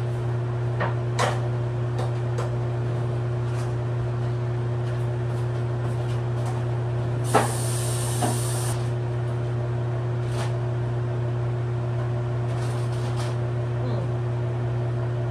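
Kitchen clatter: scattered knocks and clinks of pans and dishes being handled, over a steady low hum. About seven seconds in comes a louder knock, followed by a high hiss lasting about a second and a half.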